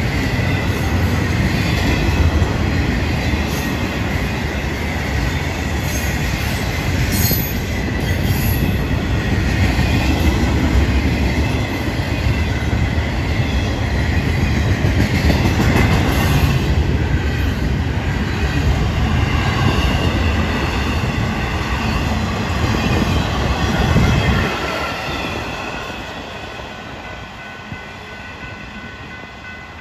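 Freight train's intermodal cars rolling through a road crossing, a loud rumble of wheels on rail with a steady high squeal from the wheels. About 24 seconds in the last car clears and the rumble fades away.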